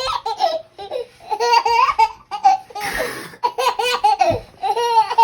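A baby laughing in a run of short, high-pitched peals, with a breathy laugh about three seconds in.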